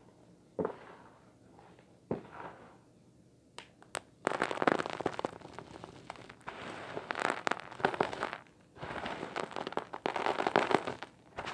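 Fingers rummaging through dry vacuum-cleaner debris (grit, small bits and a clump of dust and lint) in a clear plastic tray. A few light clicks come in the first few seconds, then from about four seconds in there are long stretches of dense, gritty rustling with short breaks.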